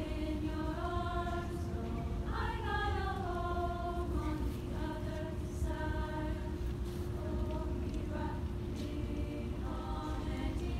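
Women's choir singing phrases of held notes over a steady low sustained note, with a falling swoop in the voices about two seconds in.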